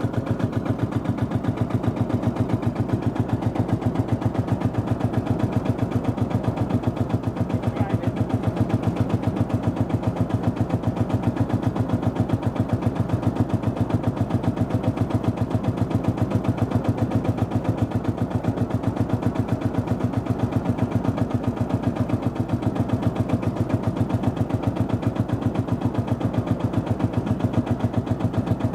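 Series 3 Field Marshall tractor's single-cylinder two-stroke diesel engine running steadily, with a rapid, even chuff of separate exhaust beats through the rebuilt exhaust.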